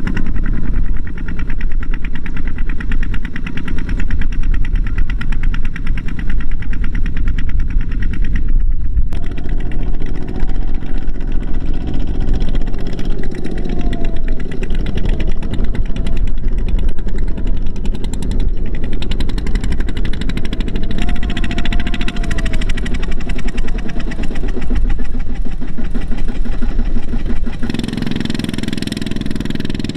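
Two-wheel walking tractors' single-cylinder diesel engines chugging steadily as they pull loaded trailers through a harvested paddy field. The sound cuts out briefly about nine seconds in and changes tone near the end.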